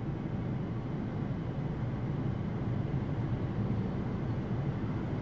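Steady, low rumble of road and engine noise from a moving car.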